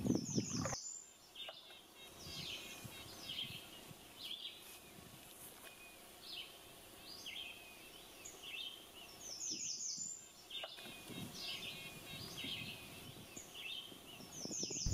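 Songbirds singing and calling over quiet outdoor ambience: many short high chirps, with a quick run of falling high notes heard three times, near the start, about two-thirds of the way through, and at the very end.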